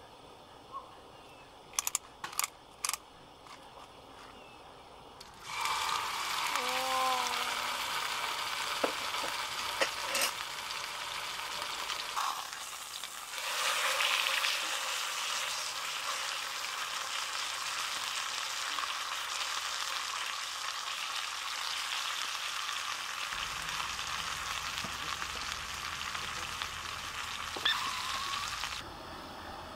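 A few sharp clicks, then a steak goes into a hot pan about five seconds in and sizzles loudly and steadily, the searing hiss running until it cuts off near the end.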